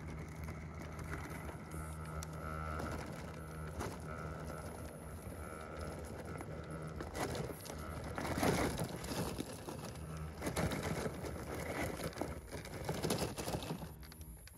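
Electric motor and gear drive of an RC crawler truck running with a steady whine through the first half, then giving way to irregular crunching and scraping noise.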